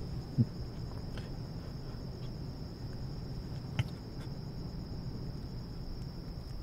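Night ambience of crickets chirping steadily as a high, even trill over a low background rumble, with two short knocks, about half a second in and near four seconds.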